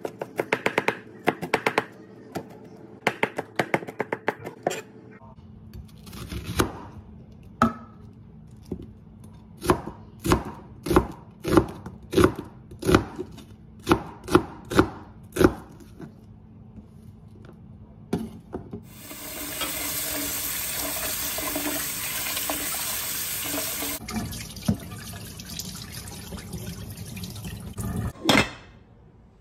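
Kitchen knife on a plastic cutting board: rapid chopping knocks as garlic is minced, then slower single cuts, about two a second, as slices are cut from a vegetable. About two-thirds of the way in, a kitchen tap starts running water into a metal pot, and near the end a short splash as the water is poured off into the sink.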